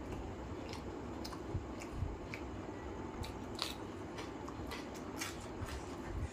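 Close-up eating sounds of a person chewing with the mouth open, with wet smacks and clicks at irregular intervals, and fingers squishing through curry and tearing roti.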